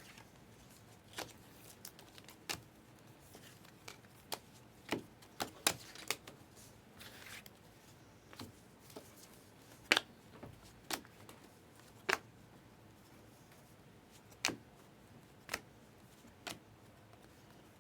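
Trading cards being handled and sorted by hand: irregular sharp clicks and snaps as cards are flipped and set down, with a short rustle about seven seconds in.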